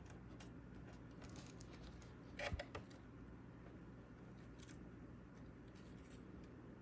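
Faint rustling, scratching and rubbing of a vinyl decal piece being handled and smoothed down onto a plastic charger case by hand, with a brief louder crinkle and tap about two and a half seconds in.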